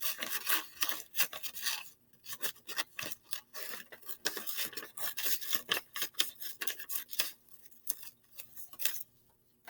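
Paper being handled and worked at a table: a quick run of short, scratchy rubbing strokes and rustles that stops near the end.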